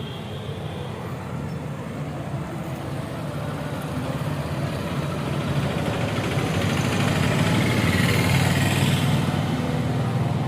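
Road traffic: a steady vehicle engine rumble that grows louder towards about eight seconds in, as if a vehicle is passing close by, then eases slightly.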